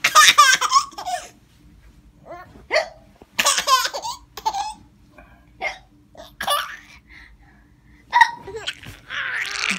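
A baby laughing in high-pitched bouts, at the start, about three and a half seconds in, and near the end, set off by a woman's hiccups. The single short hiccups fall in the gaps between the bouts of laughter.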